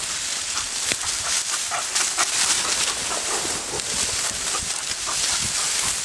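Dry crop stalks and stubble crackling and rustling underfoot and against the legs as a person walks through the field, with many small snaps.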